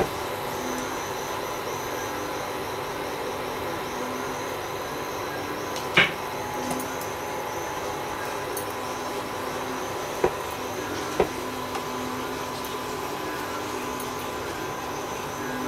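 Steady whir and hum of an induction cooker running under a pan of cooking pancake batter, with three short sharp knocks, the loudest about six seconds in and two more around ten and eleven seconds.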